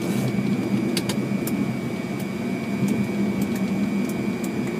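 Fokker 100 flight deck noise during the landing rollout: a steady low rumble of the engines and the wheels on the runway, with a thin steady high tone and a few light clicks.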